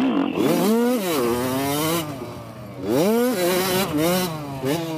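Dirt bike engine revving under hard throttle. It climbs in pitch, eases off, then climbs sharply again about three seconds in as the throttle is opened and closed over the track.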